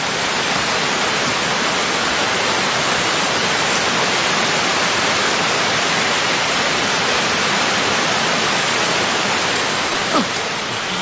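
Heavy rain from a sudden summer shower pouring down steadily, a dense hiss that swells up over the first second.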